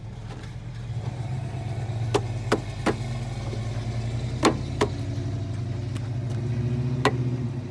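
A steady low engine hum, with six sharp plastic clicks and knocks as a tail light assembly is pushed into place against the car body.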